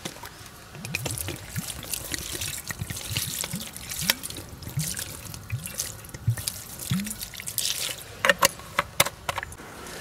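Water poured from a plastic bottle onto the embers in a small folding wood stove (Bushbox) to put the fire out. It glugs from the bottle in repeated short rising gulps from about a second in, with a few sharp clicks near the end.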